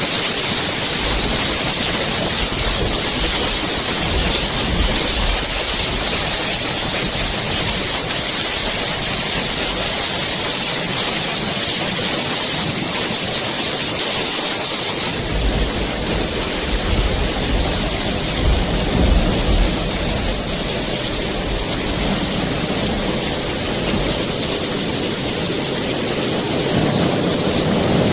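Heavy rain falling steadily, with low rumbles of thunder about a second in and again around halfway through.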